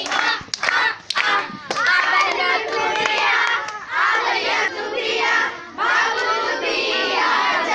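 A group of girls chanting loudly together, with hand claps among them in the first couple of seconds.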